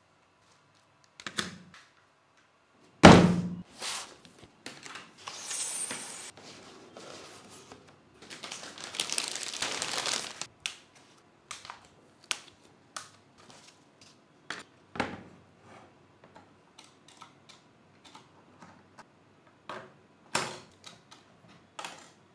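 Computer parts and their packaging handled on a table: a heavy thud about three seconds in, rustling of packaging in two stretches, and many small clicks and taps.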